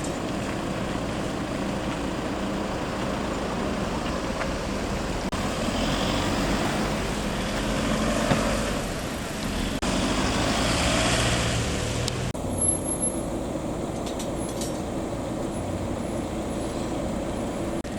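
Fire trucks driving past one after another in a convoy: a steady rumble of engines and tyres. The sound changes abruptly a few times.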